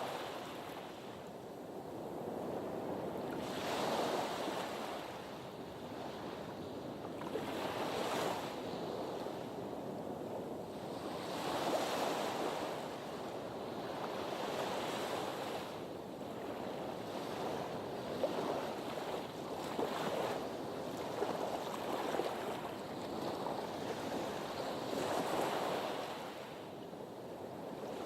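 Sea waves washing against a harbour breakwater. The surf swells and ebbs in waves every three to four seconds.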